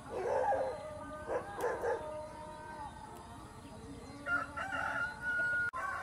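A rooster crowing in the first two seconds, in two loud calls, over background music that carries on with a held note near the end.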